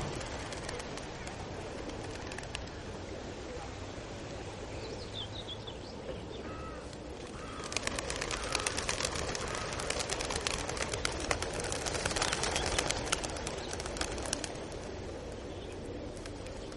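A large flock of racing pigeons' wings flutter in a dense, rain-like rustle that swells about eight seconds in and fades after about fourteen. A few short bird calls come before it.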